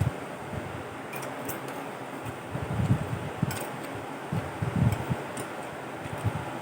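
Chewing and eating noises with a few light clicks, over the steady hiss of an electric fan.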